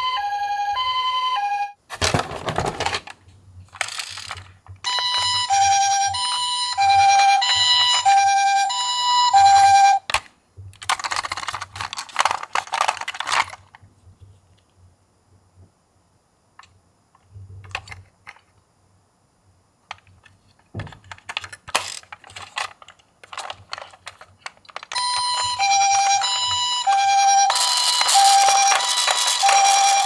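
Toy ambulance's electronic two-tone siren, a higher and a lower note alternating about once a second, sounding in three stretches. Between them come short rustling and clicking handling noises.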